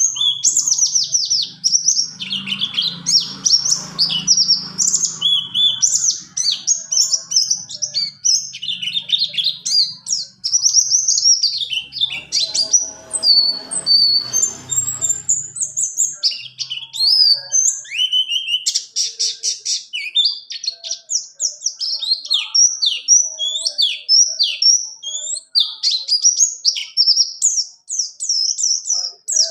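Pleci buxtoni white-eye singing a long, unbroken twittering song: rapid high chirps, quick trills and short up-and-down slurs running on without a pause, the rolling 'ngerol' style used as tutor song for other white-eyes.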